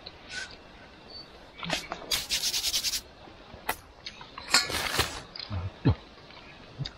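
Camp gear being handled: rubbing and scraping with scattered clicks, a fast run of rapid ticks for about a second from about two seconds in, and a louder rustling scrape a little past the middle.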